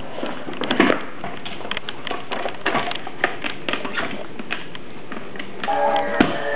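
Scottish terriers' claws clicking and skittering on a hardwood floor in quick, irregular taps as they scuffle. Music comes in near the end.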